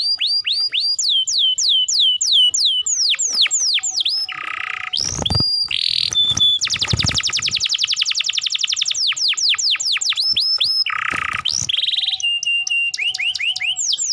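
Domestic canary singing loudly without pause: runs of quick falling whistled notes, a few short buzzy rolls, and a very fast trill about halfway through.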